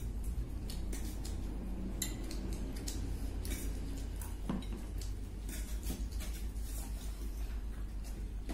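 Eating utensils clicking and clinking against dishware as food is picked up and eaten, in scattered single knocks over a steady low hum.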